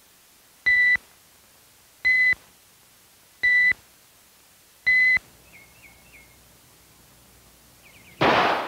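Electronic beeper sounding four short, high beeps about one and a half seconds apart, counting down the time to decide. Near the end, a single sharp .22 rifle shot.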